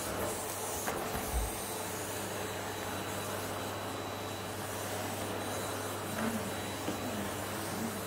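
Vacuum cleaner running steadily, its floor head pushed over carpet: an even rush of air over a constant low hum.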